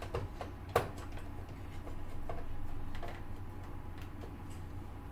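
Low steady hum with a few light clicks, one sharper than the rest a little under a second in.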